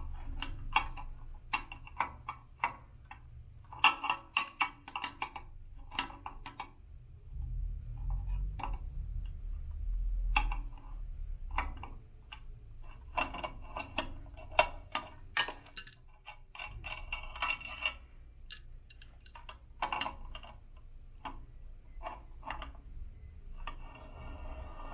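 Adjustable wrench clicking and clinking against the locking nuts on an elliptical's one-piece crank as they are loosened. It is a string of irregular sharp metallic taps, with a low rumble about a third of the way in.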